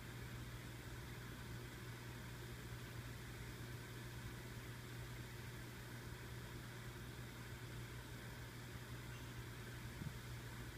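Steady low hum over a faint hiss, background equipment or room noise, with one small click about ten seconds in.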